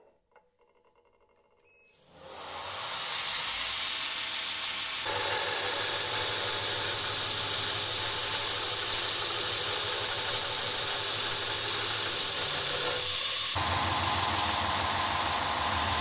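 Belt grinder starting up about two seconds in, then a cast steel ingot pressed against the running abrasive belt: a loud, steady grinding hiss over the motor's hum. The grinding changes tone, heavier and lower, about thirteen seconds in.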